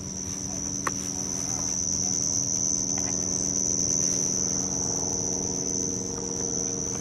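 A cricket trilling one steady, unbroken high note, with a faint steady low hum underneath and a couple of faint handling clicks.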